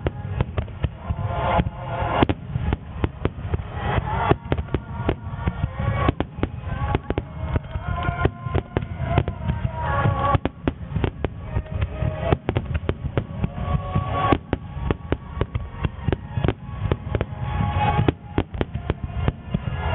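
Super Starmine fireworks barrage: a rapid, unbroken run of aerial shell bursts, many sharp bangs a second overlapping one another, with music playing underneath.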